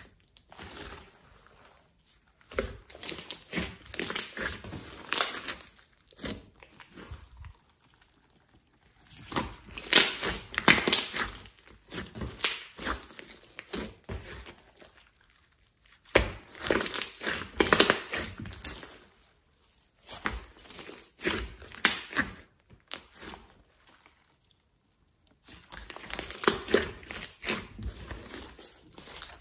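Hands squishing, poking and stretching a large blob of glossy slime, making wet, sticky crackling and popping. It comes in about five spells of a few seconds each, with near-quiet pauses between.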